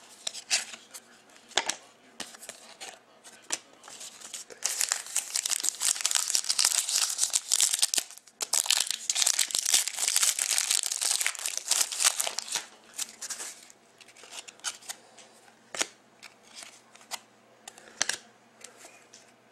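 A trading-card pack wrapper being torn open and crumpled: a dense crackle starting about four seconds in and lasting about nine seconds, with a brief break in the middle. There are scattered light clicks before and after.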